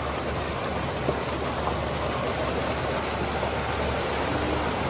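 Tubewell water gushing steadily into a concrete tank, a continuous rushing noise.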